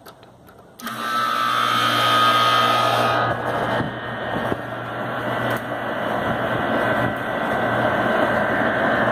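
A Trane heat pump's outdoor unit starting suddenly about a second in as its contactor is pushed closed: a steady hum with a whine that fades after a couple of seconds, then the newly replaced condenser fan motor running with a steady rush of air.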